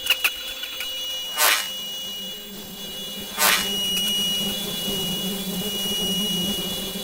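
A steady high-pitched electronic tone, like a buzzer or alarm, that fades out near the end, with a few clicks at the start and two short whooshes about two seconds apart.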